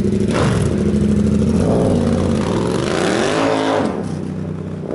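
Yamaha MT-07's parallel-twin engine through a handmade exhaust, revving up as the motorcycle pulls away and accelerates. Its pitch climbs and then drops about three to four seconds in, and the engine gets quieter toward the end as it moves off.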